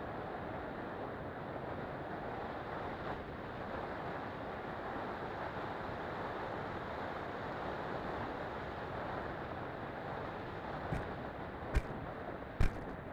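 Steady rush of wind noise on the FPV plane's microphone, with no motor tone, then a few sharp knocks about eleven to thirteen seconds in.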